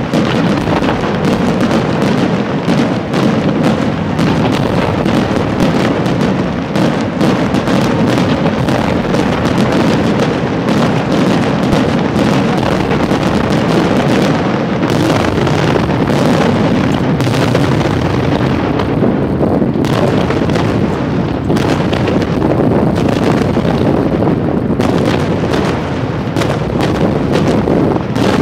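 Chiarappa Fireworks aerial display at full intensity: a loud, dense barrage of firework shell bursts, many overlapping each second with no pause.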